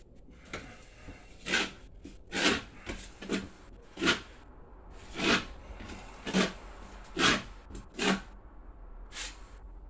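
A hand tool scraping and smearing joint compound onto a wall as it is worked into a textured coat: short rough strokes, about one a second.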